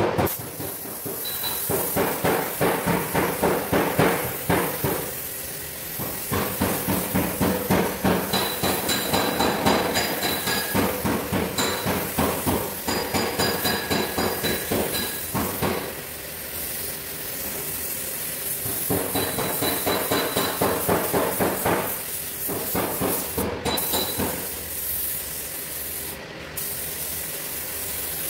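Air spray gun hissing as paint is sprayed onto a car fender, under a regular beat of about three to four knocks a second.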